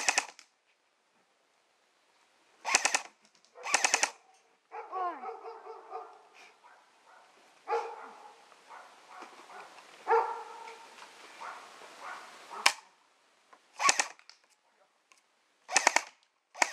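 Airsoft guns fired in short automatic bursts, each a quick rattle of shots lasting well under a second. There are several bursts near the start and again near the end, with a long gap in the middle. During the gap a dog barks and whines.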